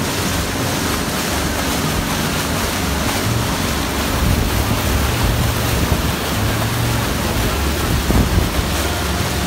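Water rushing and splashing in the wake of a moving motorboat, with wind buffeting the microphone and the boat's engine droning low underneath.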